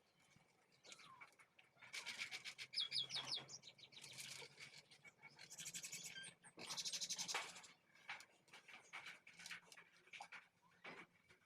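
A few quick, high bird chirps about three seconds in, amid scattered faint clicks and rustles.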